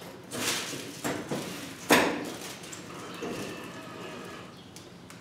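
Plastic housing of an automatic paper towel dispenser knocking and clicking as it is pushed and snapped onto its wall mount: a few sharp knocks in the first two seconds, the loudest near two seconds in, followed by a fainter, steady whir about three seconds in.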